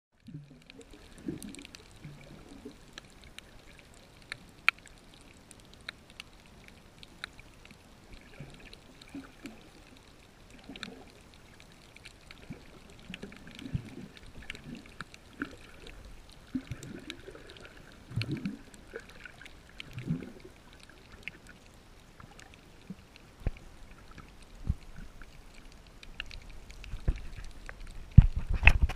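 Underwater ambience picked up by a submerged camera in shallow, moving water: muffled sloshing and swishing of the surge with scattered sharp clicks. Heavier low thumps come near the end.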